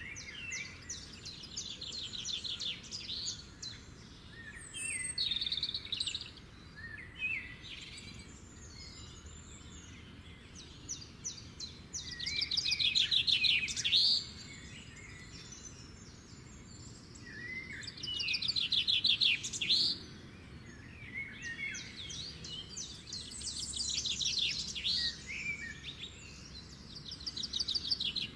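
Songbird singing: rapid high trills of about two seconds each, some ending in a quick rising sweep, repeated every several seconds with shorter chirps and calls between them.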